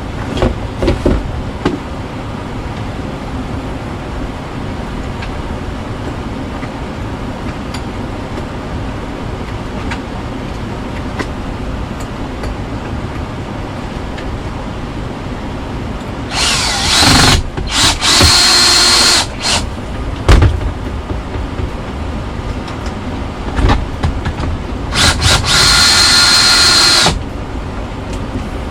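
Power drill run in several short bursts with a steady high motor whine, a cluster of brief runs in the second half and then a longer run of about two seconds near the end, over a steady background noise.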